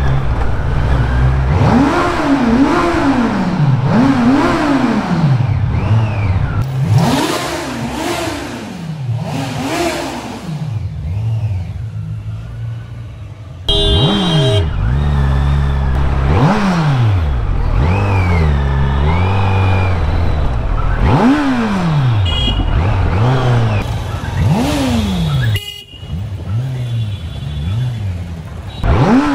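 Kawasaki Z900's inline-four engine through its stock exhaust, revved again and again in quick blips, each rising and falling in pitch over about a second.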